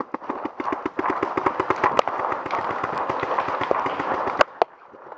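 Paintball markers firing a rapid string of quick pops, with a few louder single cracks near the middle and toward the end. The firing drops off in the last half-second.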